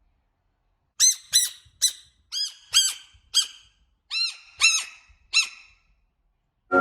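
A frog squeaking: about nine short, high squeaks in an uneven series, each rising and falling in pitch.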